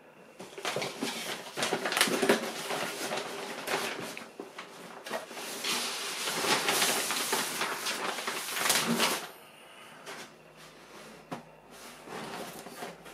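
Plastic mailing bag rustling and crinkling as it is opened and a cardboard shoebox is pulled out of it, for about nine seconds, then quieter handling of the box.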